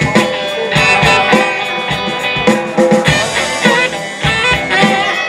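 A live rock band playing a song on electric guitars, drum kit and saxophone.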